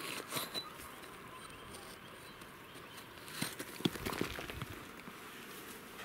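Steel rock pick scraping and chipping at soft sediment, working a fossil loose: a few scrapes near the start, then a cluster of scratches and knocks about three and a half to four and a half seconds in.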